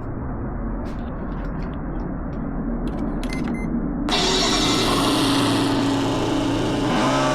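An RC engine sound simulator powered up for the first time, playing a synthetic car engine through its small speaker on its default BMW M6 sound. A low hum with a few clicks gives way, about four seconds in, to a louder engine start, which settles into a steady engine tone near the end.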